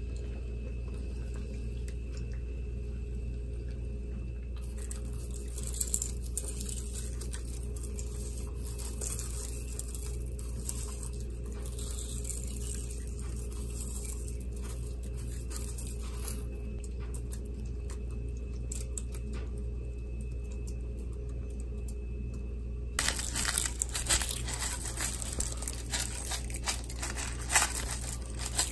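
Dry crumb topping being crushed and sprinkled over a baking dish of cheesy pasta: crackly crunching and crinkling over a steady low hum. It begins about five seconds in, dies down in the middle and comes back denser and louder near the end.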